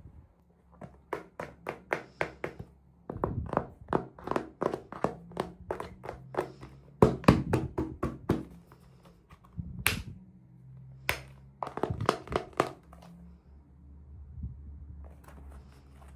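Hands handling small plastic toy pieces and packaging: a run of irregular light taps, clicks and knocks, with two sharper clicks about two-thirds of the way through.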